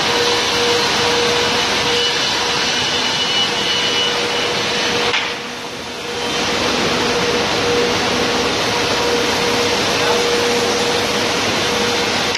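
A Goodtek HS-635ARD high-speed double-sided planer running as boards are fed through, a loud steady mechanical drone with a constant hum in it. The level drops for about a second some five seconds in, then returns.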